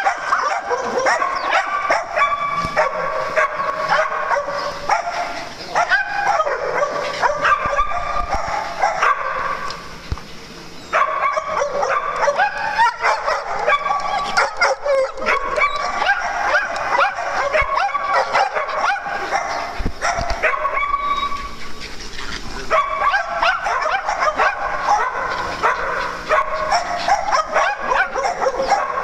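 Several small dogs barking and yipping almost nonstop in play, with overlapping high-pitched calls and a brief lull about ten seconds in.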